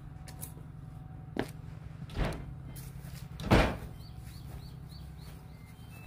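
A few dull knocks and thumps over a steady low rumble, the loudest about three and a half seconds in, followed by a quick run of faint high chirps.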